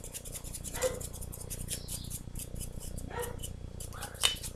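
Stiff, dry paintbrush scratching over a plaster figure in quick back-and-forth strokes. A few short, high yelps are heard along with it. A sharp click and a low knock come near the end.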